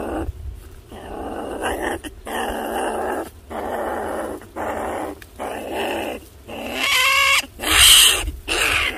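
A trapped small wild animal growling in hoarse calls, about one a second. About seven seconds in it gives a higher, wavering squeal, and the loudest call comes just after.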